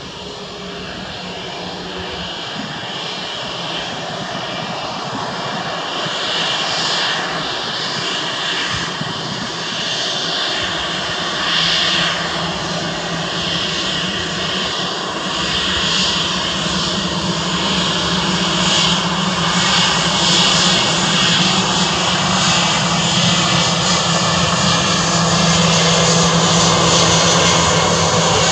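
Airbus A320-214's CFM56-5B turbofan engines running at low taxi power, a steady jet whine with a low hum that grows steadily louder as the airliner rolls slowly closer along the runway.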